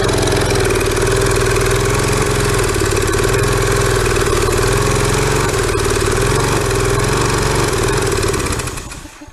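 Briggs & Stratton small engine on a pressure washer running steadily, then dying out near the end. It runs only with sprayed ether as a boost, with old gasoline still in its fuel system.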